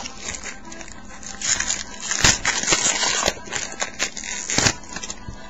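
A trading-card pack's foil wrapper being torn open and crinkled by hand: crackling rustle from about a second and a half in, with a few sharp snaps.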